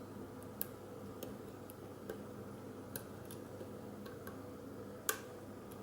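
Faint, scattered metallic ticks of a lock pick and tension wrench being worked in a standard 50 mm padlock during picking, about eight in all and irregularly spaced, the sharpest one about five seconds in.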